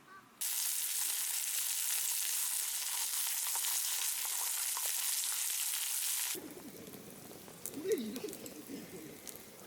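Steady, loud sizzling with small crackles, like food frying in a hot pan. It starts suddenly and cuts off abruptly after about six seconds. A quieter stretch follows, with low cooing bird calls near the end.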